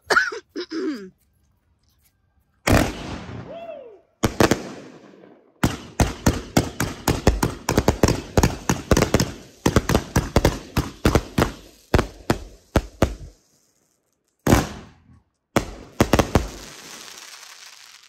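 Consumer fireworks going off: a rapid string of sharp bangs and crackles, several a second, then two more bursts and a crackling hiss that fades away.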